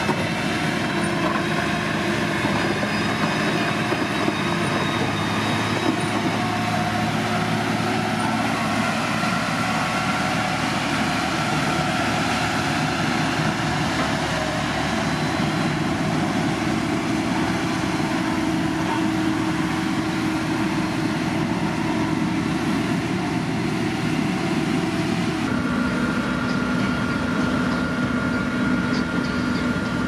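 Motor grader's diesel engine running steadily under load. The tones in the sound shift abruptly about 25 seconds in.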